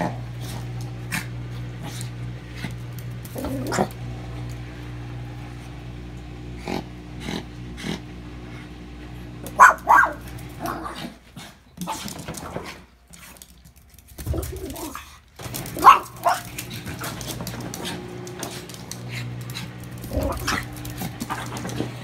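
Chihuahua growling and letting out a few sharp barks while worrying a rug, the rug scuffing on the floor. A steady low machine hum runs underneath, dropping away for a few seconds in the middle.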